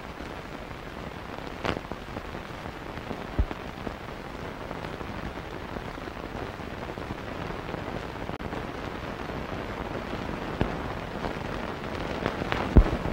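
Steady hiss and crackle of an old film soundtrack with no speech, broken by a few sharp pops, the loudest near the end.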